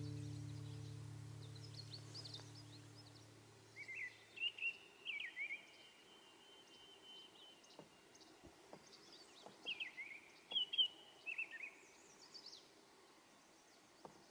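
A songbird calling in short chirping phrases, several clusters with one held note, over faint outdoor ambience. Before the calls start, the last guitar chord rings out and fades.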